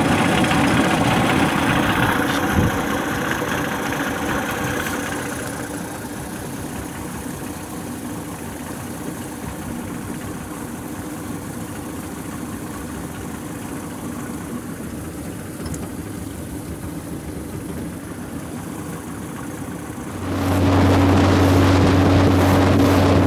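Motorboat engine idling, then about twenty seconds in it is throttled up to a steady, louder running as the boat gets under way.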